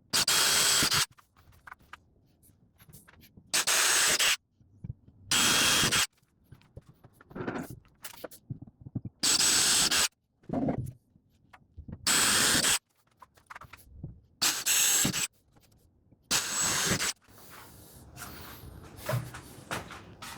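Drill running in seven short bursts of under a second each, drilling small 5/64-inch pilot holes into wood, with small handling sounds between the bursts.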